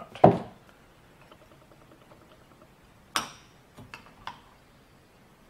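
Parts of a battery master switch being handled and fitted together: a knock just after the start, a run of faint fast ticks, then a sharp click about three seconds in and two lighter clicks soon after.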